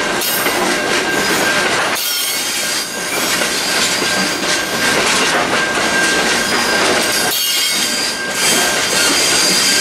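Container wagons of an intermodal freight train rolling past close by on a curve, the wheels squealing with steady high-pitched tones over the rumble and clatter of wheels on rail.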